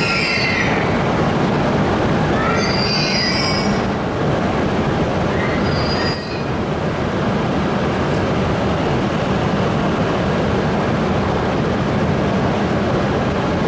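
Series E8 Shinkansen creeping along the platform toward a waiting E5 Series for coupling: a steady hum of the train, with two brief high wheel squeals near the start and about three seconds in.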